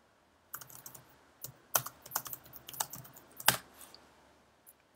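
Typing on a computer keyboard: a quick run of key clicks for about three seconds, ending in one louder keystroke.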